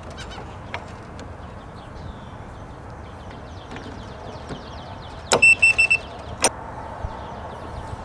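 Keyless RV door lock's electronic unit giving a quick run of about five short, high-pitched beeps as it powers up on fresh AA batteries. There is a sharp click just before the beeps and another about a second later.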